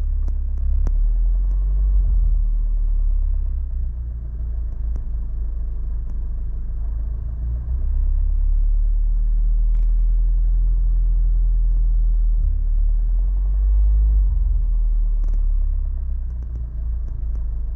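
Honda Civic Type R (FK8) 2.0-litre turbocharged four-cylinder engine running with a deep, steady low rumble and a few faint ticks; the owner reports the new engine makes a knocking sound.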